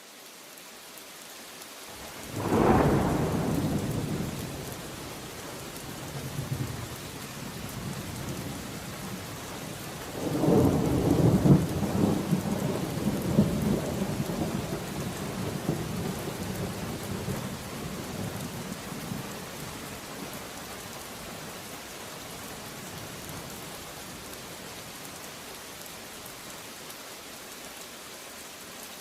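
Steady heavy rain with thunder: a sharp clap about two seconds in that rumbles away, then a long rolling peal from about ten seconds in that fades over several seconds, leaving the rain alone.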